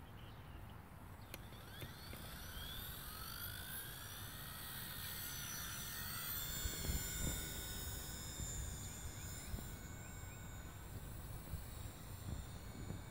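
Blade 130 S electric RC helicopter spooling up and lifting off: a high whine that rises in pitch over the first few seconds, then holds steady as it hovers and climbs away. A low rumble of wind on the microphone runs underneath, strongest around the middle.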